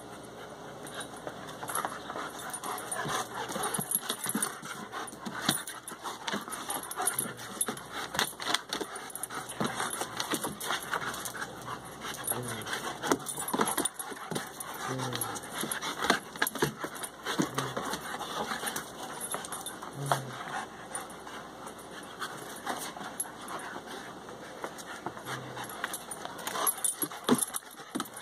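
Two German Shepherd dogs play-fighting, with panting, short low growls every few seconds, and scuffling and knocking of paws and bodies on wooden decking.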